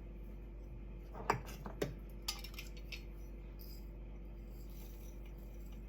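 A few short clinks of kitchen measuring spoons and containers being handled, three of them between about one and two and a half seconds in, over a faint steady hum.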